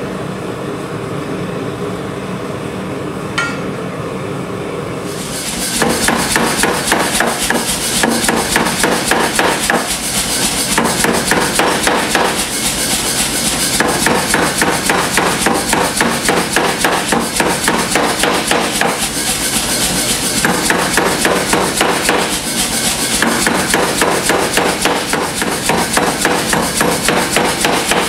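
A gas forge burner running with a steady roar. About five seconds in, a power hammer starts pounding a hot steel bar in rapid, even blows, stopping briefly a few times.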